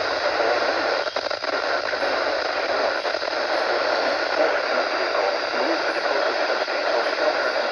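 Weather radio receiver putting out a steady hiss of static, with a brief crackle about a second in.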